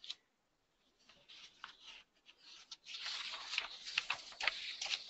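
Faint, irregular clicking and rustling. It gets busier and louder from about three seconds in.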